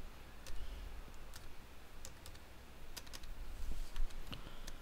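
Computer keyboard keys pressed one at a time, giving scattered, irregular clicks over a low steady hum. These are arrow-key presses stepping a file selection down a list.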